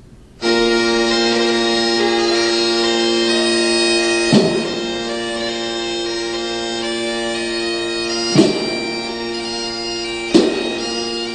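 Bagpipes playing a tune over their steady drones, starting abruptly just after the beginning, with three sharp hits about 4, 8 and 10 seconds in.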